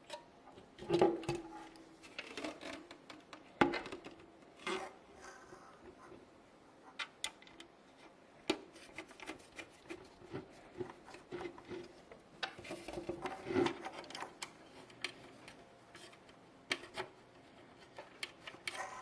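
Screws being turned into a hard drive through the sides of a metal drive cage: irregular small clicks and knocks with the scrape of threads and metal rubbing between them.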